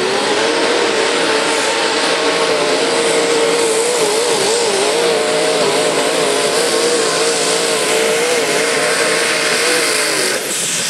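Mini modified pulling tractor's engine running hard at high revs as it drags a weight-transfer sled. Its steady pitch rises at the start, wavers up and down through the middle of the pull, then drops away about ten seconds in.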